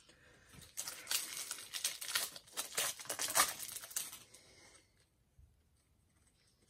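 Plastic trading-card pack wrapper being torn open and crinkled: a run of crackling rustles for about four seconds, stopping before the end.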